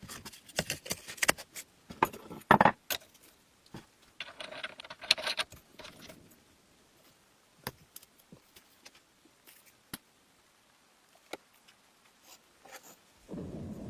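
Small metal parts and hand tools clinking and clattering, a quick run of sharp clanks followed by a few isolated taps. A steady rushing noise starts just before the end.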